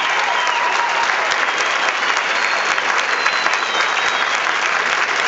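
Large audience applauding steadily, a dense wash of clapping.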